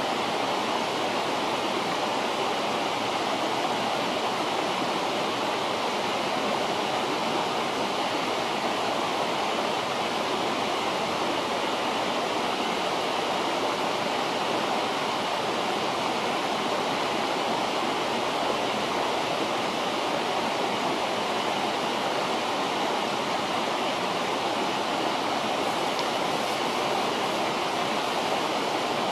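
River water rushing in a steady, even hiss.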